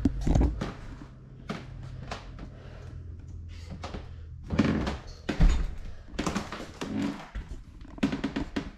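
Irregular knocks, clicks and thumps, the loudest about five and a half seconds in, over a low hum that fades out in the first few seconds.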